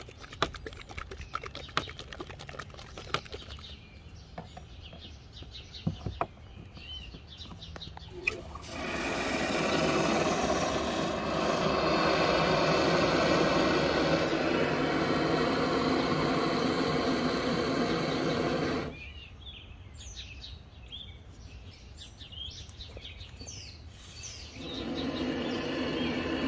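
Can of Loctite Tite Foam expanding foam spraying through its thin straw into a hole drilled in a hollow-core door: a steady hiss that starts about eight seconds in, runs about ten seconds and stops suddenly, then starts again near the end.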